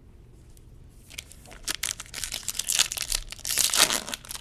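Foil trading-card pack wrapper being torn open and crinkled, a quick run of crackles and rustles that starts about a second in and gets louder toward the end.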